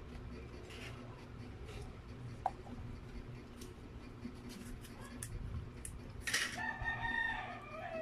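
A rooster crowing about six seconds in: one long held call that drops in pitch at its end. Before it there are small scattered clicks.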